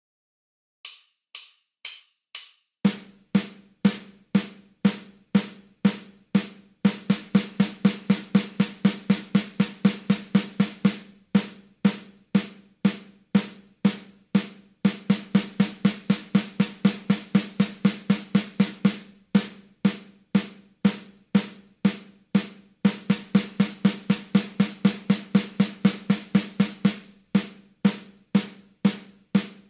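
Four clicks count in the tempo, then a drum plays a 120 BPM exercise in 4/4. Two bars of quarter notes (two strokes a second) alternate with two bars of eighth notes (four strokes a second), switching about every four seconds.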